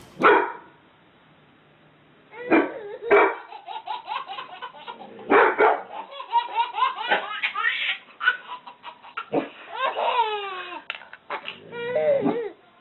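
A dog barks a few times and a baby laughs in quick giggles around the barks. It starts after a couple of quiet seconds.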